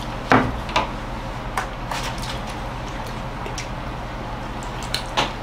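A few short clicks and soft knocks from handling food and tableware while eating at a table, over a steady low hum.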